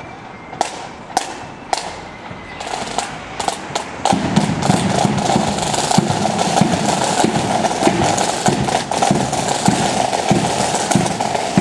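Marching flute band: sharp drum taps mark the step about twice a second, then about four seconds in the band strikes up, flutes playing over rapid side drums and a bass drum.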